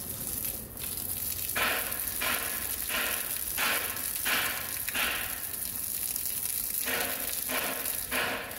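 Garden hose spraying a stream of water onto wet paving tiles: a steady hiss with a regular run of short rushing spatters about every two-thirds of a second, pausing for a couple of seconds midway.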